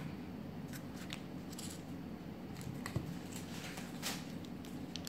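Scissors snipping open small plastic condiment sachets: a scatter of faint, short snips and crinkles.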